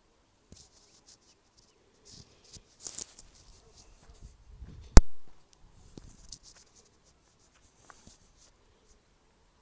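Scattered rustling and scratching from walking over dry grass and handling the phone. About halfway through comes a single sharp knock, the loudest sound.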